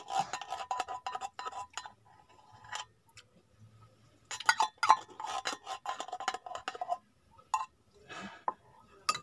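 A utensil scraping and clicking inside a nearly empty Ligo sardine tin to get out the last sauce and fish. The rapid metallic scrapes and clicks come in two stretches of about two seconds each, with scattered clicks between and after.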